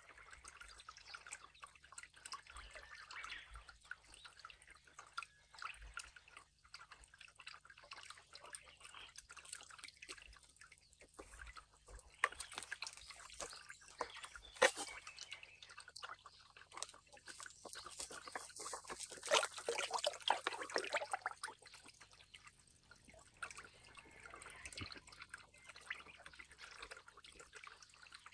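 Water dripping and trickling into a pond: a faint, steady patter of small drops that swells into a fuller trickle for several seconds in the middle.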